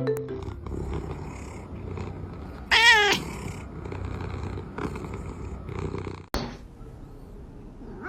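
A cat purring steadily, with one short wavering call about three seconds in; the purring cuts off abruptly at about six seconds.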